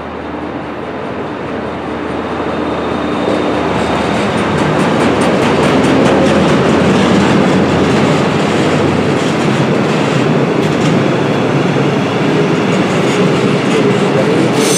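Diesel locomotive passing at the head of a freight train of loaded double-deck car-carrier wagons: the sound grows louder over the first six seconds as the train comes near, then holds steady as the wagons roll past, with wheels clicking over rail joints.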